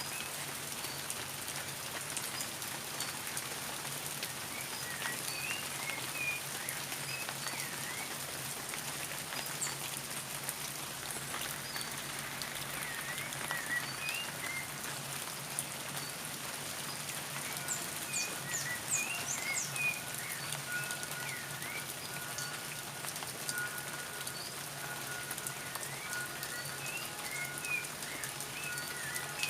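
Steady rain falling, with birds chirping in short calls at intervals throughout. A faint steady high tone comes in a little past halfway.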